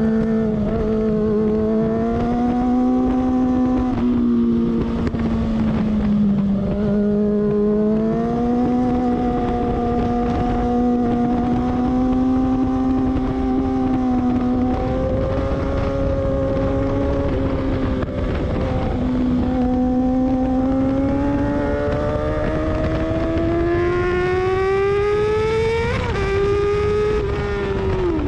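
Sport motorcycle engine running hard on track, heard from the tail of the bike over wind rush. Its pitch rises and dips through the corners, then climbs steadily for several seconds as the bike accelerates down the straight, and falls sharply twice near the end.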